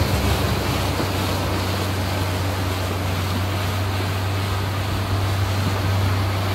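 Speedboat engine running steadily under way: a constant low drone over an even rush of water and wind.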